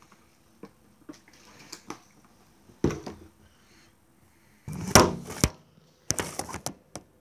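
Handling noise close to the microphone as the camera is moved: scattered light clicks, then three rustling bumps about three, five and six seconds in, the one about five seconds in the loudest.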